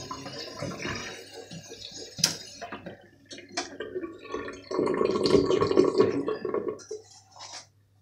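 Tap water running into a stainless steel kitchen sink, shut off with a click a little over two seconds in. A hand then rubs and wipes the wet steel basin for about two seconds, with a few small knocks near the end.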